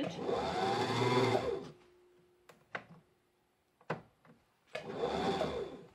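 Vintage electric sewing machine's motor run twice from the foot pedal to wind a bobbin, each time whirring up in pitch and falling back as the pedal is released, with a few clicks from handling the bobbin winder in between. The bobbin is not winding because it has been pushed down too far on the winder spindle.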